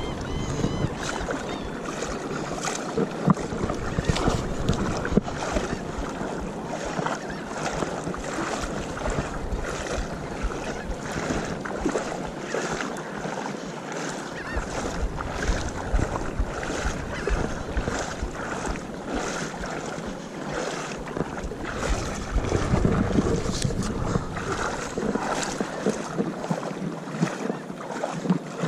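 Water sloshing and swishing around the legs with each stride of a person wading through shallow water, about one to two splashes a second, with wind buffeting the microphone.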